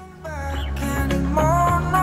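Background music that starts at a cut: a low, steady bass first, with a sliding melody line coming in about halfway through.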